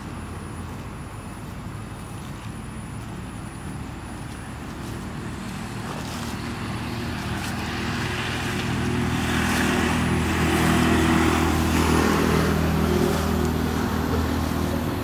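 A motor vehicle's engine running, growing steadily louder over several seconds, loudest about eleven seconds in, then easing off slightly near the end.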